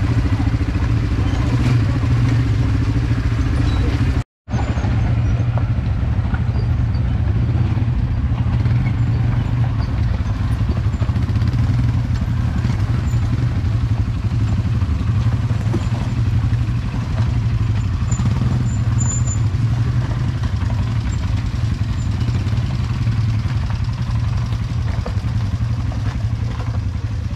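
Quad bike (ATV) engines running steadily under way, a loud, even low drone. The sound drops out for a split second about four seconds in.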